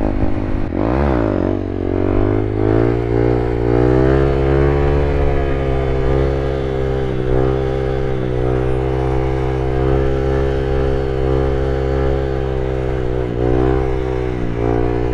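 Honda Grom's small single-cylinder engine running at a steady cruising speed under a rider, its pitch briefly dropping and climbing again about a second in, with short dips later on.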